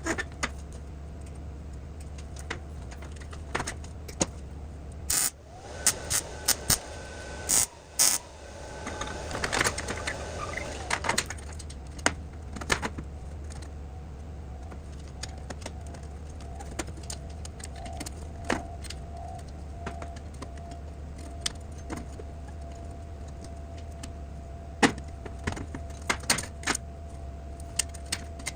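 Metal tools and small metal parts clinking and clattering on a workbench: scattered sharp clicks, with a busier stretch of handling a few seconds in. A low steady hum runs underneath.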